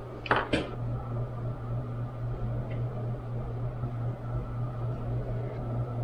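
A steady low hum with a faint even hiss, and one brief short sound just under a second in.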